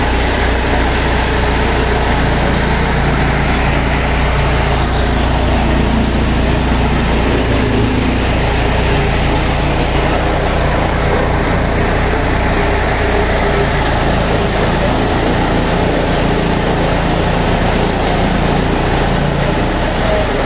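Tractor-PTO-driven chaff cutter running steadily and chopping green fodder as it is fed in, over the mini tractor's engine hum; a loud, even, unbroken din.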